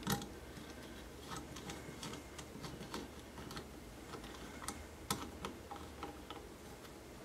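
Faint, irregular clicks and ticks as a metal hose clamp's screw is turned with a driver, tightening the band around a glass mason jar.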